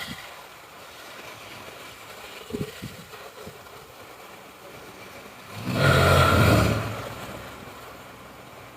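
A person snoring in sleep: one loud snore lasting a little over a second, about six seconds in, with a few faint clicks a few seconds before it.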